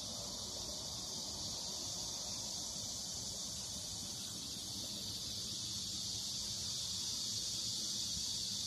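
Steady high-pitched chorus of insects, one unbroken shrill drone that grows slightly louder near the end.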